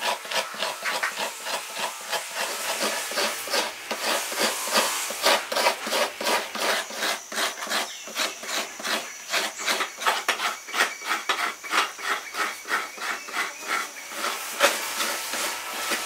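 Fresh coconut half scraped by hand against the toothed blade of a Sri Lankan hand coconut scraper (hiramanaya), a steady run of rasping strokes about three a second.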